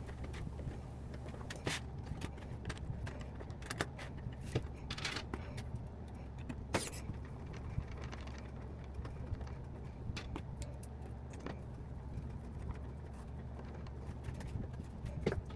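Scattered light clicks and taps of small plastic parts and screws being handled, a few sharper ones about two, five and seven seconds in, over a steady low hum.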